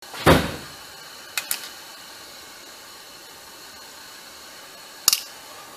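Small steel parts of a transmission's shift detents (bolts, springs and ball bearings) being handled and set into a metal parts tray: a knock about a third of a second in, two quick clicks around a second and a half in, and another click near the end, over a steady hiss.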